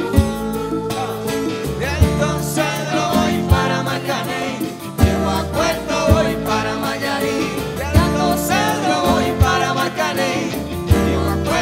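Live Latin band music: a woman singing the lead over keyboard chords and a steady low beat.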